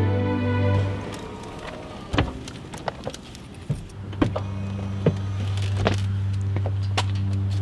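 Soft music fades out within the first second, then a run of sharp clicks and knocks as a person opens a pickup truck door and climbs into the driver's seat, over a low steady hum.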